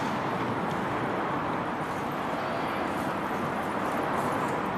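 Steady hiss and rumble of motorway traffic.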